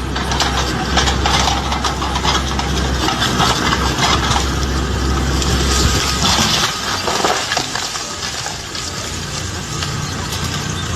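An engine running under loud clattering and crunching noise. The deep engine drone drops away about six and a half seconds in, and the clatter carries on.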